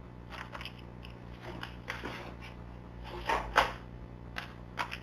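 Baby's plastic rattle toy being handled, giving scattered short clicks and rustling rattles at irregular moments, the loudest about three and a half seconds in.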